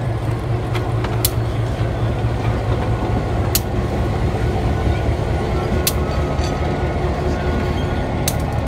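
Diesel switcher locomotive's engine running with a steady low rumble as it rolls slowly past, with a few sharp clicks at irregular intervals.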